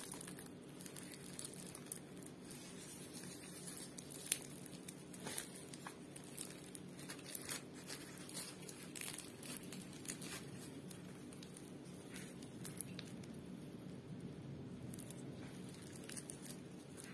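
Crisp, flaky pan-fried katlama flatbread crackling as hands fold it, tear it and pull its layers apart: a scatter of small sharp crackles over a faint steady low hum.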